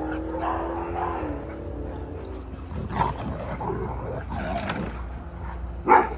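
Dogs play-fighting and growling: a long drawn-out growling vocalization that drops in pitch after about a second, then rough, irregular play growls, and a sharp bark near the end.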